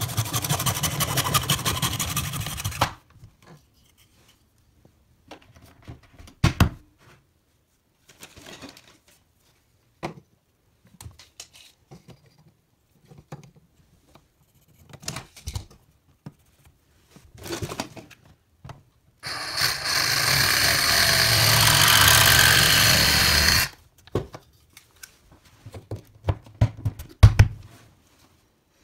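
A black plastic adjustable cabinet-leg tube being sawn by hand, rapid rasping strokes that stop about three seconds in. Scattered clicks and knocks of handling follow, then about four seconds of loud, steady power-tool cutting a little after the middle, and a few short bursts near the end.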